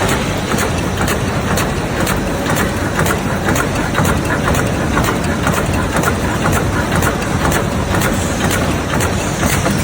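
Automatic bag cutting and handle-punching machine running, a steady mechanical hum with an even, rapid clicking of its cutting and punching strokes, about two to three a second.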